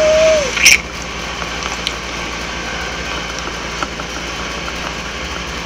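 A short hummed 'mm' from a voice, rising then falling, at the start, and a brief hiss just after, then steady background hiss with a low electrical hum.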